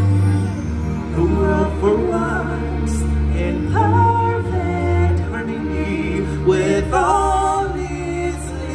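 Show music with singing: held, wavering vocal lines over sustained low bass notes.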